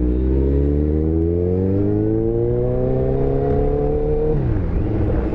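Kawasaki Ninja 1000's inline-four engine, breathing through an aftermarket Scorpion exhaust, pulling under load with its pitch climbing steadily for about four seconds. Near the end the note drops suddenly and settles at a lower, steady pitch.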